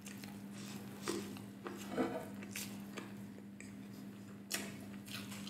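Close-miked chewing, with wet mouth smacks and a few sharp clicks, then sips of beer from a glass mug about four seconds in, over a steady low hum.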